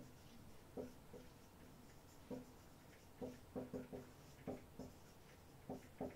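Marker writing on a whiteboard: a series of about a dozen short, faint, slightly squeaky strokes, bunched together in the middle.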